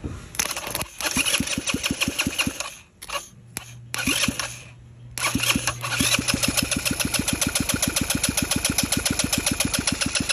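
Freshly rebuilt Kymco Like 150cc single-cylinder scooter engine being cranked over for a compression test, with a compression gauge screwed into the spark plug hole: fast, even chugging pulses in two runs, the first about two seconds long, then a few short blips, then a longer run of about five seconds that stops near the end.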